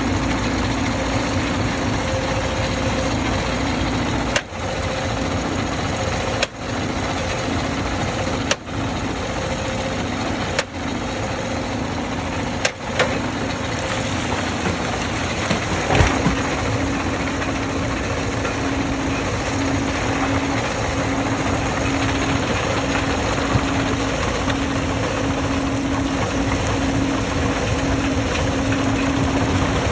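Stone crusher machinery running with a steady, continuous mechanical drone and hum. The sound dips briefly about every two seconds in the first half, and a single sharp knock comes about halfway through.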